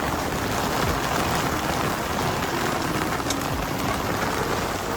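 Heavy rain falling on a sailboat: a steady, dense hiss of a downpour with scattered sharper drop ticks.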